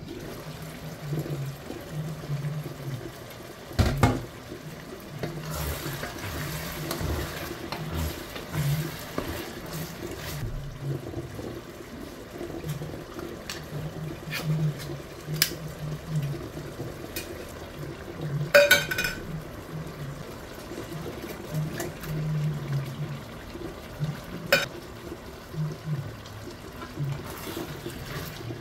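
A pot of tomato stew simmering in a stainless steel pot, with a few sharp knocks and clinks as the glass lid, a tuna can and a wooden spatula meet the pot. One knock is loud, about four seconds in, and one rings metallically more than halfway through.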